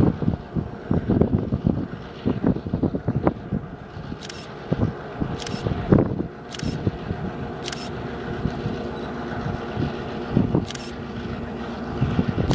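EMD GP9 diesel locomotive's 16-cylinder two-stroke engine pulling a freight with a steady drone, with gusts of wind buffeting the microphone. Several sharp camera shutter clicks come from about four seconds in, roughly a second apart at first and one more later.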